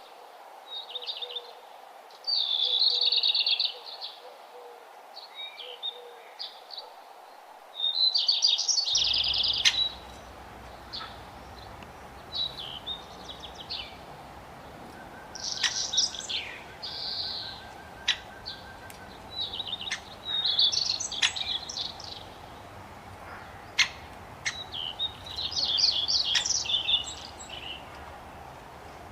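Songbirds singing and calling: bursts of high chirping and trilled phrases every few seconds, with sharp single chips in between, over a steady background hiss.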